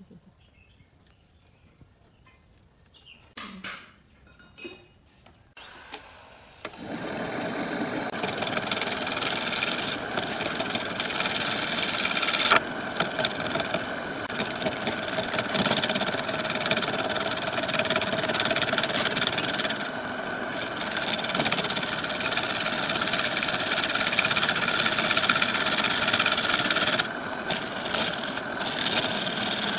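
A turning tool cutting into a glued-up wooden disc spinning on a wood lathe: a loud, steady, dense scraping hiss that starts suddenly about seven seconds in and breaks off briefly several times as the tool lifts from the wood. A few faint knocks and handling sounds come before it.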